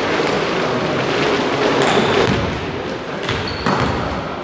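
Volleyball being played in a large echoing sports hall: a few sharp ball hits and thuds, with a brief high squeak near the end, over a steady hall din.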